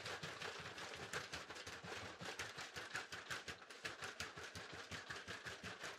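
The 3D-printed openDog V3 quadruped robot dog walking on carpet: quiet, rapid clicking and tapping from its stepping feet and motor-driven leg joints, several clicks a second.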